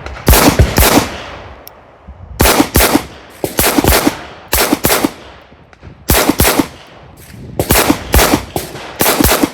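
Handgun shots fired in doubles: about seven pairs of two quick shots, the pairs a second or so apart, each shot trailing off in echo.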